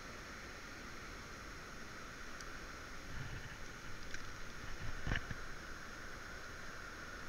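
Steady rush of flowing river water, with a few soft knocks and clicks a few seconds in; the loudest knock comes about five seconds in.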